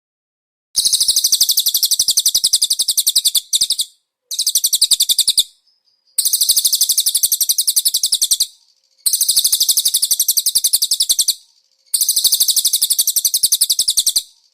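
Cililin bird singing: five long, very fast, high-pitched trills of rapidly repeated notes, each lasting one to three seconds, with short pauses between them.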